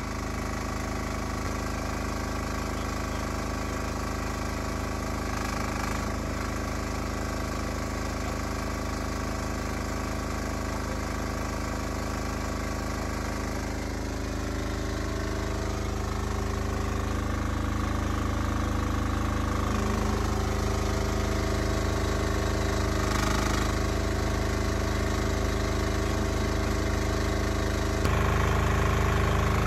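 HT08 mini excavator engine running steadily just after start-up, getting louder near the end.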